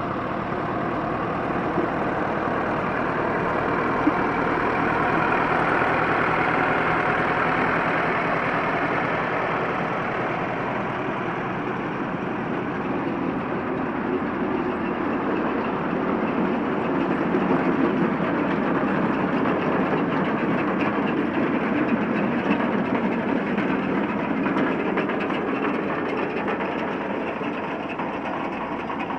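Tractor diesel engine running steadily, pulling a potato harvester, with the harvester's machinery clattering along with it.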